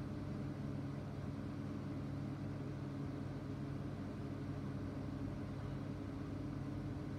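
Steady rain heard as an even, muffled hiss, under a constant low hum.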